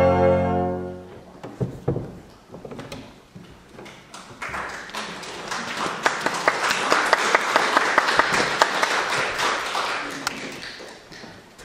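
An organ's held final chord stops about a second in. A few scattered claps follow, then an audience applauding, swelling and dying away near the end.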